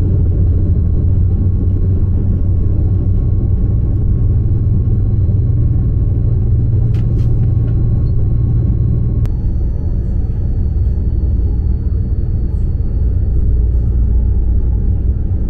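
Deutsche Bahn ICE 3 high-speed electric train running at speed, heard from inside the passenger cabin: a loud, steady low rumble of rolling noise. Faint thin high whines ride above it and step to a slightly different pitch about nine seconds in.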